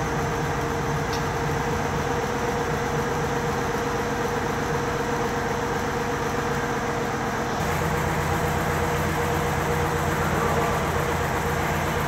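Two-head Richpeace computerised embroidery machine running, its needle heads stitching with a steady, rapid mechanical clatter over a constant hum. The sound turns lower and fuller about seven and a half seconds in.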